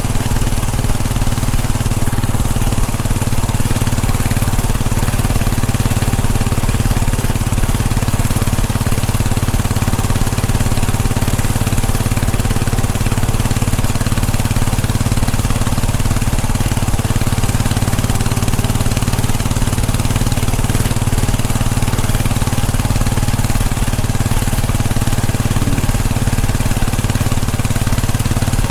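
Royal Enfield Bullet 500's single-cylinder engine running steadily at a constant cruising speed, under a steady rush of wind noise.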